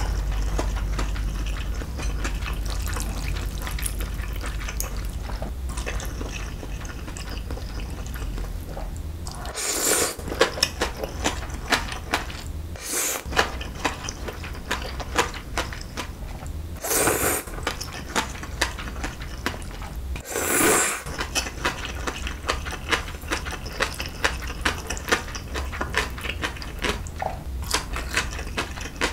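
Close-miked slurping and chewing of cold milmyeon wheat noodles: a steady run of small wet mouth clicks and smacks, broken by three louder slurps around the middle.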